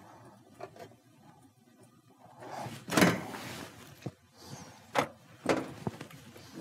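Sheet-metal back panels of an electric range being shifted and pressed into place: a sliding scrape with a sharp knock about halfway through, then two lighter knocks.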